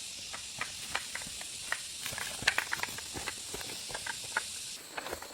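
Cooking over an open fire: a steady hiss with many scattered crackles and pops. The hiss drops a little near the end.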